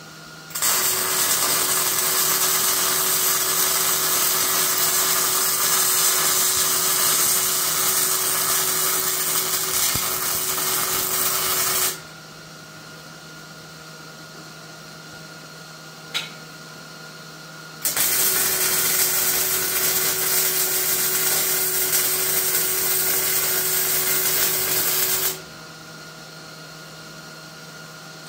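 Electric arc welding on steel: the arc crackles and hisses evenly through two long beads, the first about eleven seconds and the second, after a pause of about six seconds, about seven and a half seconds. A low steady hum runs underneath, and there is a single click during the pause.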